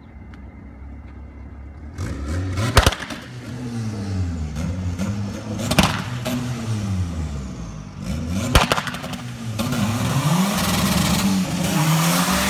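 A car engine idling faintly, then from about two seconds in being revved hard over and over, pitch climbing and dropping, with three loud exhaust bangs about three seconds apart, like backfire pops from launch control. For the last few seconds it is held at high revs with a loud hiss over it.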